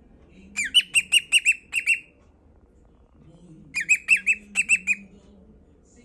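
Cockatiel singing two quick runs of about seven sharp, repeated chirping notes each, the runs about two seconds apart.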